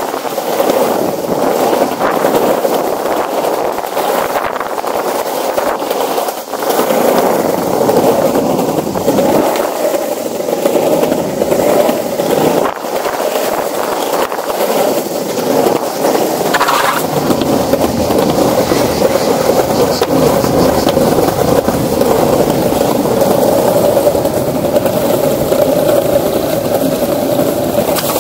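Skateboard wheels rolling steadily over plank decking, a continuous rumble with irregular clicks as the wheels cross the board joints.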